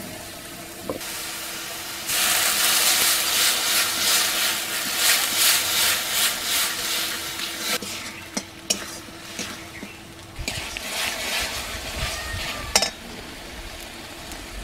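Spice paste sizzling in hot mustard oil in a metal kadai while a metal spatula stirs and scrapes coriander powder into it, loudest from about two seconds in and easing after about eight seconds. A sharp knock near the end.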